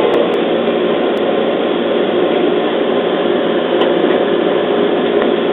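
Steady running noise heard inside the car of a JR East 211 series electric train at speed: an even rush and rumble of wheels on rail at a constant level.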